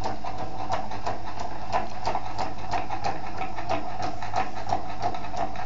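Small electric motor and gearing of a model automatic car-parking mechanism running with a steady whine and hum, with irregular clicks and ticks from the moving parts a few times a second.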